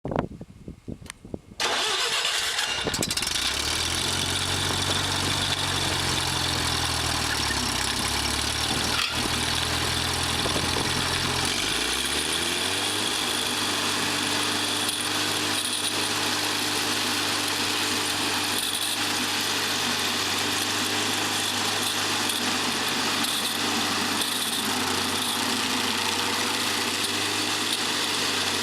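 Stump grinder engine starting and running at low idle, then revving up about twelve seconds in and holding a steady higher speed.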